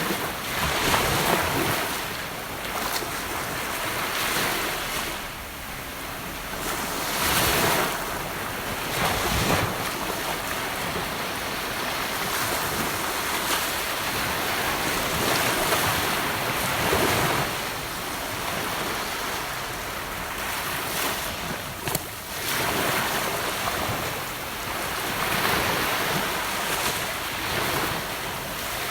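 Gentle ocean waves breaking and washing up on a beach, the surf swelling and easing every few seconds. A single short click about two-thirds of the way through.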